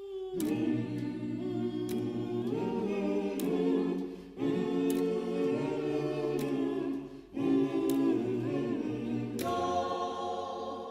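Layered a cappella voices singing held chords in three phrases, with sharp clicks scattered through.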